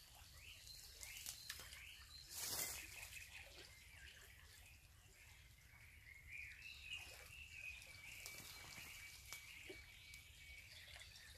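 Faint woodland ambience: small birds calling in short high chirps, with one held high call through the second half, and a brief rustle about two and a half seconds in.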